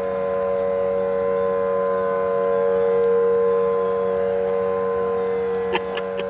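Civil defense sirens, among them a Federal Signal Thunderbolt, sounding a steady held tone. The tone swells a little about halfway through, then eases.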